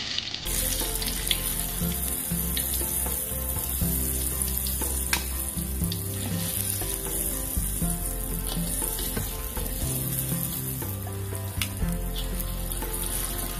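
Hot oil sizzling in a wok around battered pieces of fermented cassava (tape goreng) as they fry and are lifted out with a metal spatula, with a few sharp clicks of the spatula against the wok.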